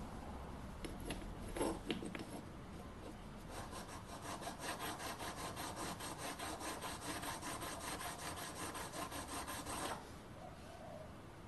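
Stepped drill bit's cutting edge rubbed back and forth on an oil stone to sharpen it: a fast, even scraping rhythm of several strokes a second that stops abruptly about ten seconds in. A few light knocks near the start.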